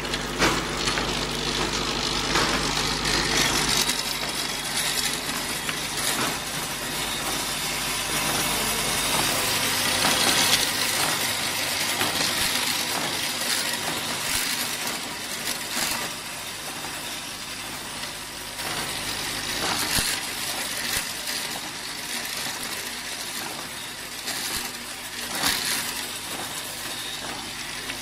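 Automatic thermocouple-tip assembly machine running: the vibratory bowl feeder shakes the tips along its track in a dense, continuous rattle of small clicks and clinks, over a low machine hum that fades about a third of the way in.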